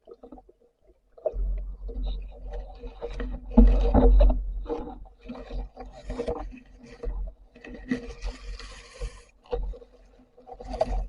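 Water sloshing and irregular knocks and rubbing around a camera in the water during a dive, with a short hissing rush about eight seconds in.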